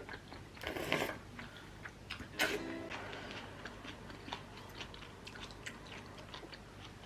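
A person eating close to the microphone: biting and chewing, with two louder crunches about a second and two and a half seconds in, and many small clicks between.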